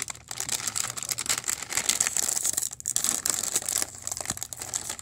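Plastic chip bag crinkling and crackling as it is gripped and pulled at a corner by hand, a struggle to tear it open, with a brief pause a little under three seconds in.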